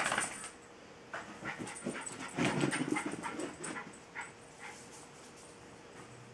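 Jack Russell terrier moving about and making short, irregular noisy dog sounds: a loud burst right at the start, then a string of short bursts from about one to five seconds in, dying away near the end.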